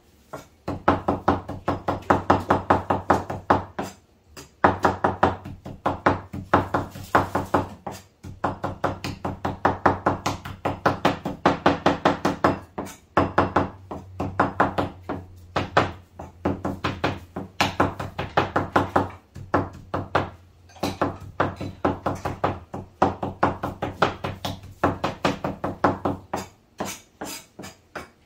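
Cleaver chopping on a wooden cutting board, mincing meat for laab: rapid, even chops about four or five a second, in runs of a few seconds broken by short pauses.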